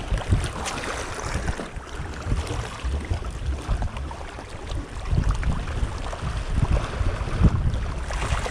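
Wind buffeting the microphone in an uneven low rumble, over a steady hiss of seawater.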